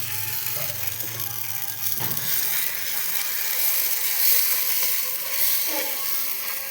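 Pakvan sizzling as it fries in hot oil, a steady hiss, with a single knock about two seconds in.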